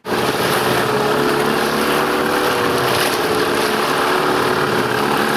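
Boat engine running at a steady speed under way, with a constant rush of wind and water over it.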